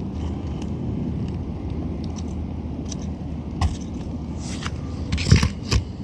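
A hammer and roof snake at work on a roofing nail under a lifted asphalt shingle: a few light clicks, then sharp knocks about five seconds in. A steady low rumble runs underneath.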